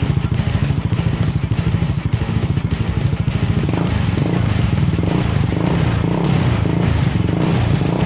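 Yamaha Mio Soulty scooter's single-cylinder four-stroke engine running through an ORBR aftermarket exhaust pipe. It starts as a pulsing idle beat, then is revved about three and a half seconds in to a steadier, fuller note, driving the rear wheel.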